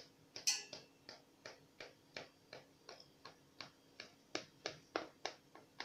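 Knife tip tapping against the bottom of a metal baking tin as a soft cake is cut into squares: quick, fairly even clicks, about three a second, that stop near the end.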